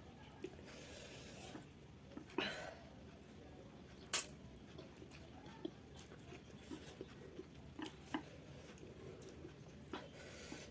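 Quiet eating sounds of spicy instant noodles: soft chewing with scattered small clicks and taps, a brief louder rustle about two seconds in and one sharp click about four seconds in.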